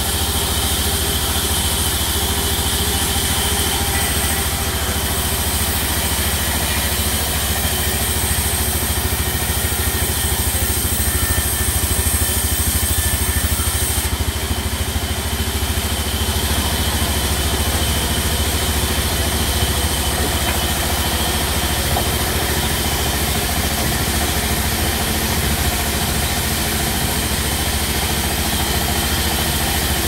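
Large sawmill band saw running steadily, its blade sawing lengthwise through a rain tree log, over a constant low motor hum.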